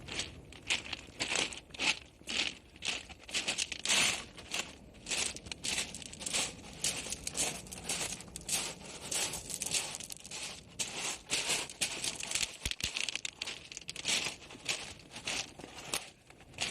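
Footsteps crunching on a pebble beach, about two crunches a second throughout.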